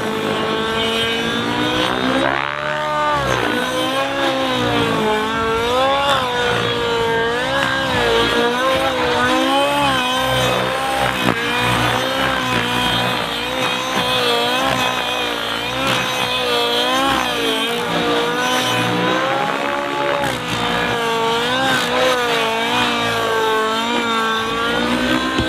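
SAB Goblin 700 nitro RC helicopter's engine running at high revs as the helicopter is pushed through hard aerobatics. Its pitch swoops down and back up every second or two.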